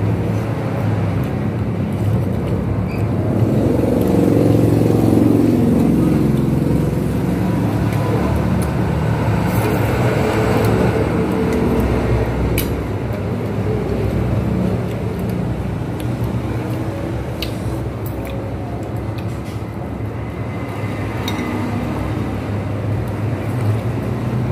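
Road traffic rumbling past, swelling as vehicles go by, with a few light clinks of metal cutlery against the bowls.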